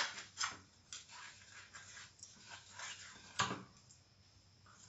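Hands rubbing spice paste into mackerel in a steel bowl: faint wet handling and rubbing, with scattered light clicks and a sharper knock about three and a half seconds in.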